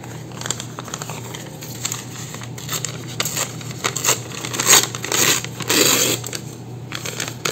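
Thin brown paper bag being torn and crinkled by hand: a run of small rips and paper crackles, loudest in the middle stretch.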